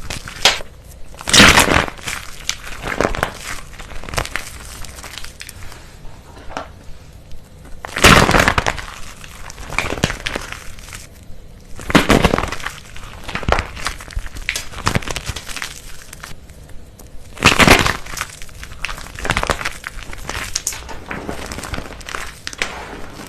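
Crisp crunching and crackling as a brittle material is crushed, with four loud crunches spread through among many smaller crackles.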